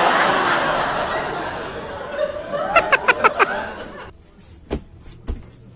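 People laughing: a loud mass of laughter that fades, then a quick run of short high-pitched laughs a little before halfway. After the laughter stops, two soft knocks are heard.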